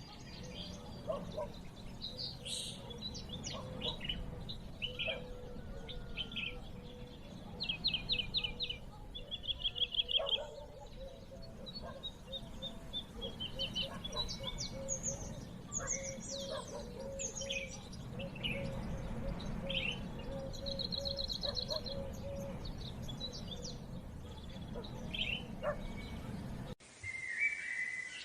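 Birds chirping and calling, with several fast trills of quickly repeated notes, over a low steady background rumble. About a second before the end the sound cuts off abruptly and changes to a quieter, different sound with a steady higher tone.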